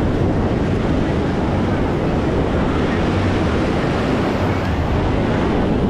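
Steady dense roar of wind on the microphone mixed with surf on a beach, with faint voices of people in the background.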